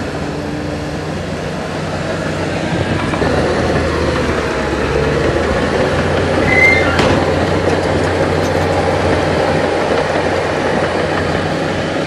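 Heavy diesel earthmoving machinery running steadily under load, with a brief high squeal and a sharp metallic knock about seven seconds in.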